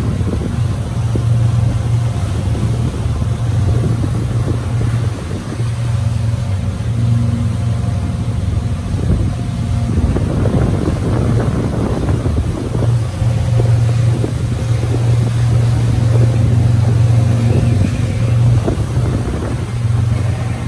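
A passenger boat's engine running steadily with a deep, even hum, heard from on board.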